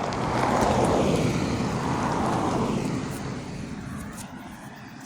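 A car driving past on the road, its engine and tyre noise swelling to a peak about a second in and then fading away.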